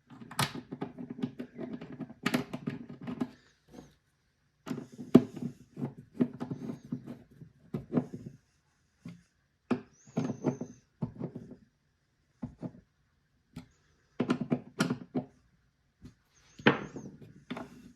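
Screws being turned in to mount a replacement latch on a steel-belted cooler: irregular bursts of scraping, grinding and clicking with short pauses between them, and a couple of brief high squeaks.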